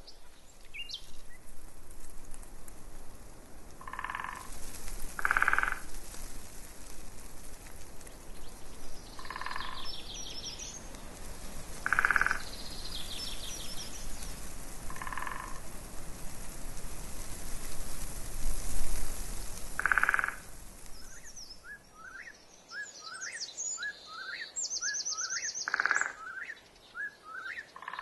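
Frogs calling, a short croak every few seconds, while songbirds chirp and trill, with a run of quick rising chirps near the end.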